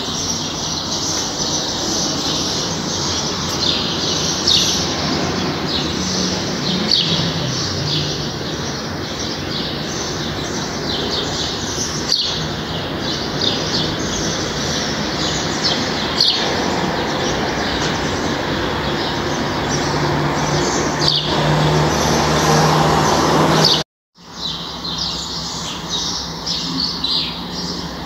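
A chorus of small birds chirping and tweeting in many quick, short calls over a steady hiss and a low hum. The sound cuts out for a split second near the end, then picks up again.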